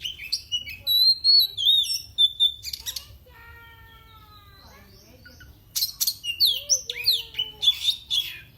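Oriental magpie-robin (kacer) singing: rapid runs of loud whistled notes with sharp rising and falling slurs and clicking notes, broken by a pause of about three seconds midway.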